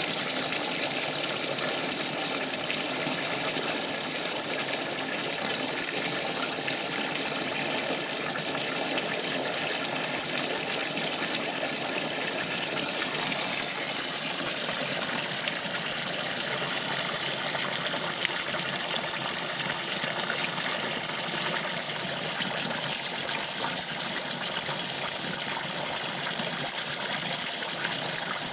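Electrolux Top 8 top-loading washing machine in its rinse cycle: a steady rush of gushing water in the tub.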